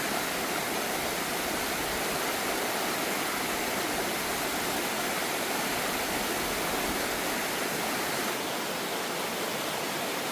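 Water rushing steadily over a waterfall and down the stream below it.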